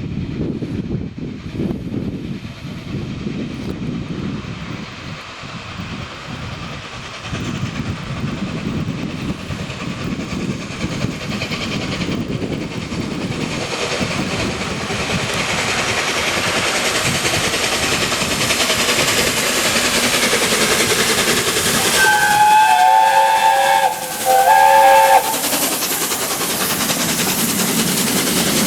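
LNER Peppercorn A1 Pacific steam locomotive 60163 Tornado approaching and passing at speed, its train noise growing steadily louder. Near the end it sounds its whistle, a chord of several tones, in two blasts: a longer one, then a shorter one just after.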